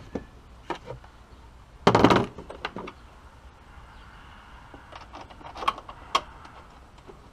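Knocks and clicks of an aFe cold air intake housing and its small fittings being handled and pushed into place in a car's engine bay, with one loud clatter about two seconds in and a few sharper clicks near the end.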